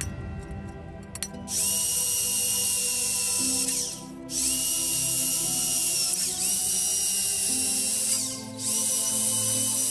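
A handheld power tool used on metal runs in three stretches, each spinning up to a steady high whine, with short stops about four and eight and a half seconds in. Background music plays underneath.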